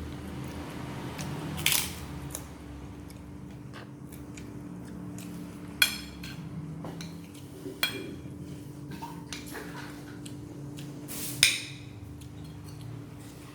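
Metal utensil clinking against dishware four times, some strikes ringing briefly, over a steady low hum.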